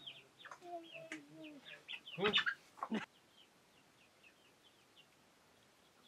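Chickens calling: a run of short, high, falling chirps like chicks peeping, with some lower clucks, and two louder sounds a little past two seconds and near three seconds in. The second half is quiet.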